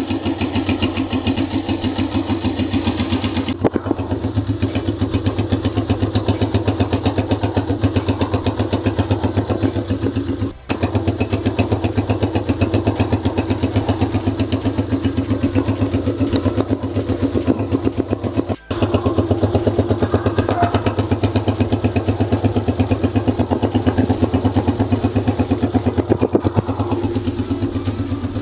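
Honda CG 125's single-cylinder, air-cooled four-stroke engine idling steadily just after a cold start, with an even, regular firing beat. The sound breaks off for a split second twice, about ten and nineteen seconds in.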